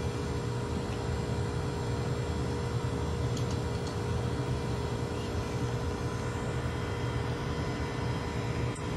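Steady low rumble and hum with a faint constant tone, unchanging throughout, like a running fan or appliance in the room.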